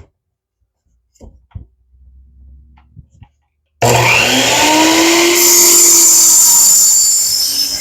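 Tool Shop 10-inch sliding compound miter saw: a few light clicks, then about four seconds in the motor starts suddenly and spins up with a rising whine, and the blade cuts into a wooden board with a loud high hiss. Elsewhere in the video the saw is described as a little underpowered.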